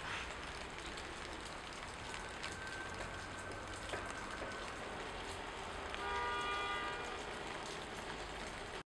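Steady outdoor background noise with no clear single source, and a held, level-pitched tone lasting about a second some six seconds in. The sound cuts off suddenly at the end.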